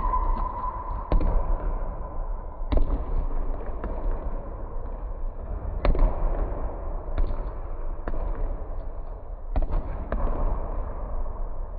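Basketballs bouncing on a hardwood gym floor: several sharp, echoing thuds at uneven intervals over a steady low hum.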